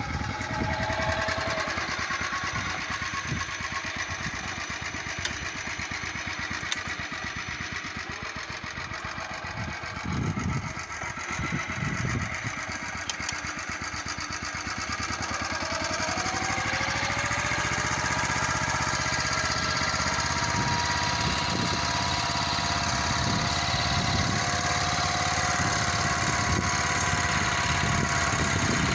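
Motor Sich MB-6 walk-behind tractor's engine running at low revs, then revving up about halfway through and running steadily and a little louder as it pulls the reversible plough through the soil.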